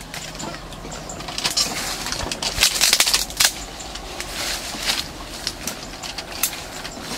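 Dry twigs and leaves crackling and snapping in a rapid run of sharp clicks, loudest about three seconds in.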